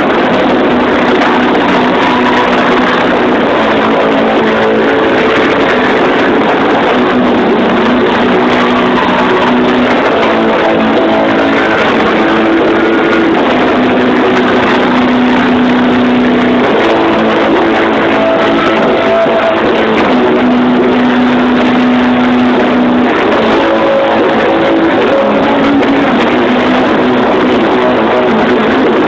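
Doom metal band playing live: loud, distorted electric guitar riff of slow, long held notes.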